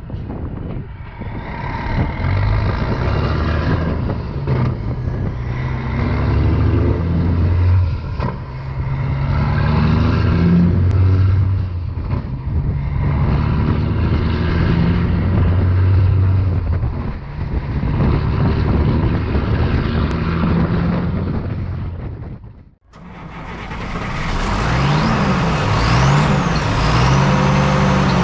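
Military 5-ton 6x6 truck's multifuel diesel engine running under way, its pitch climbing and dropping again and again. About two thirds of the way through the sound cuts out briefly, then comes back brighter with the engine rising and falling in pitch.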